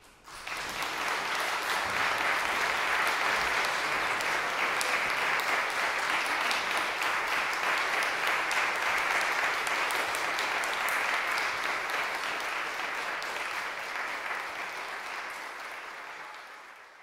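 Audience applauding steadily, tailing off over the last few seconds.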